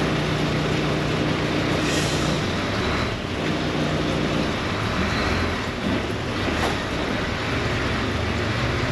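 Diesel engine of a crane lorry running steadily to drive its hydraulic loader crane while blocks are being unloaded. Its low note steps up and down a little as the crane works.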